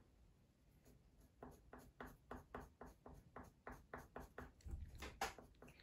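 Green coloured pencil scratching on paper in faint, short, quick strokes, about three or four a second, starting about a second and a half in.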